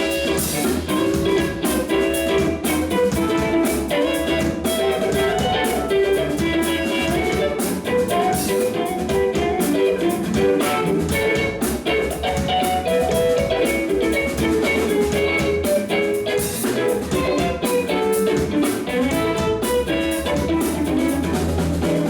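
Electric blues band playing an instrumental break: electric guitar over bass and drum kit, without vocals.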